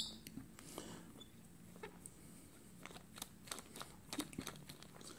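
Multi-tool Allen wrench turning out the grip screw of a revolver, then the wooden grip being worked off the frame: a short, sharp high squeak-click right at the start, followed by faint scattered clicks and light knocks of metal and wood.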